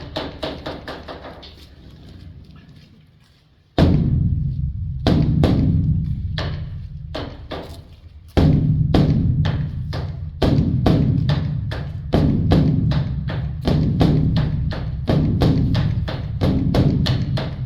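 Large Buddhist temple drum (dharma drum) beaten with two sticks: rapid clattering stick strokes over deep booming beats. It fades almost away, comes back with a heavy beat about four seconds in and another about eight seconds in, then booms about every second and a half.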